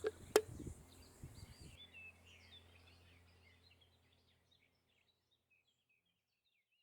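Small birds chirping faintly, many short calls that fade out near the end, with one sharp click early on.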